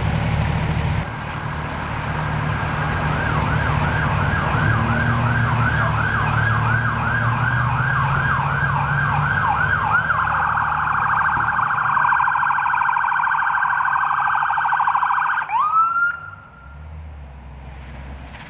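Electronic ambulance siren sounding as the ambulance approaches, in a fast yelp of about three rising-and-falling sweeps a second. About ten seconds in it switches to a faster warble, and about fifteen seconds in it cuts off suddenly with a short upward chirp. A vehicle engine rumbles underneath until the siren stops.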